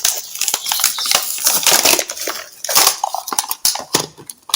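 Rapid, irregular clicking and clattering of hard plastic from a toy gun being worked and fired.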